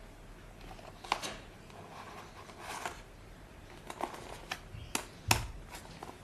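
Hands handling packaging: a scatter of light clicks and rustles, with the sharpest knock about five seconds in.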